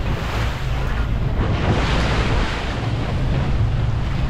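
Wind buffeting the microphone on a moving boat, over the rush and slap of choppy sea water, with a steady low engine drone underneath.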